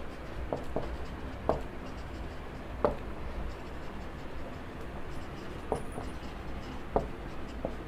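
Whiteboard marker writing on a whiteboard: short, irregular taps and scratches as each word is written, over a low steady hum.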